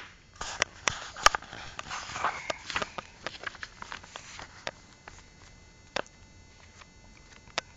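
A small child handling a picture book close to the microphone: light clicks and paper rustling, dense for about the first four seconds, then only a few scattered clicks.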